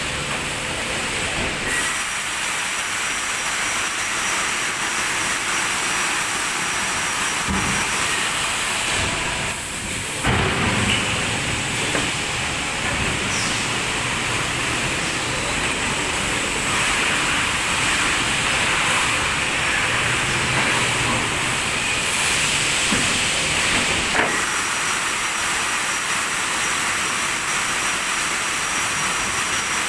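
Factory noise from an automated sheet-metal punching and forming press line: a steady loud hiss and machine noise, with a sharper knock about ten seconds in and another about two thirds of the way through.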